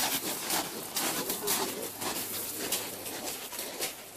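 Several people's boots crunching on a gravel path as they walk, in irregular overlapping steps.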